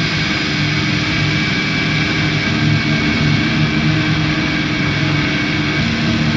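Drone/noise music: a dense, steady wall of hiss with low held droning tones that step to new pitches now and then, and a faint high whine through the middle.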